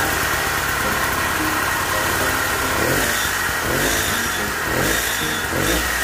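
Small petrol engine of a homemade tracked robot lawn mower running, its speed rising and falling a few times as it is throttled by radio control.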